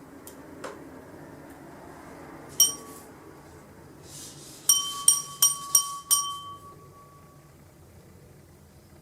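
Japanese furin wind chime ringing: a single strike, then about two seconds later a quick run of five strikes on the same clear note, which rings on for a second or so.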